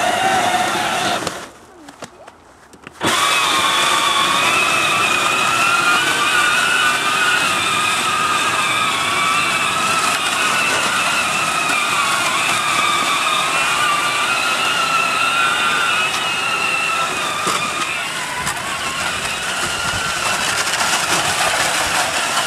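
Peg Perego John Deere Gator 6x4 ride-on toy's electric drive motors and gearboxes whining steadily as it drives over snow, the pitch wavering slightly. The whine stops about one and a half seconds in and starts again about three seconds in.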